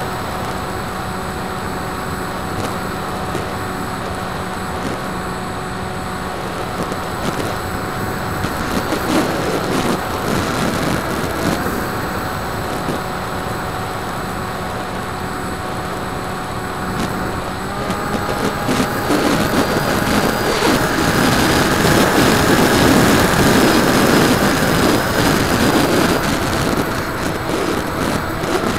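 Bixler 2 model plane's electric motor and pusher propeller running steadily, heard from the onboard camera along with wind rushing over the airframe. Just past halfway the motor's pitch steps up and the sound grows louder as the throttle is opened, easing back near the end.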